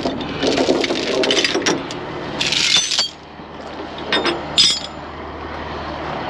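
Steel tie-down chains clinking and rattling in several bursts, over the steady low idle of a diesel truck engine.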